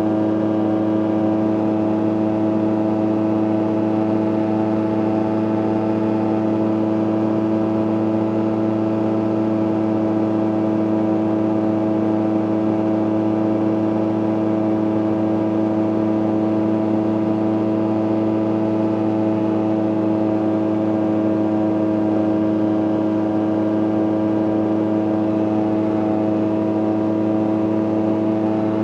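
CGS Hawk ultralight's engine and propeller running steadily in flight, heard from inside the cockpit, holding one constant pitch and level throughout.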